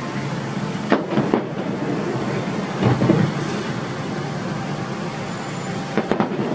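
Distant fireworks going off: a few short clusters of bangs about a second, three seconds and six seconds in, over a steady wash of street traffic noise.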